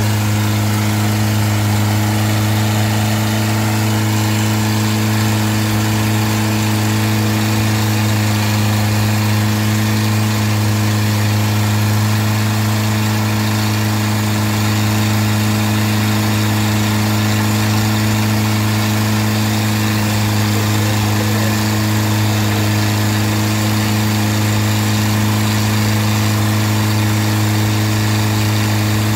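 Long-tail boat's tiller-mounted car engine, exhausting through a short open pipe, running at a steady, unchanging speed while driving the boat at pace, over a steady rush of spray.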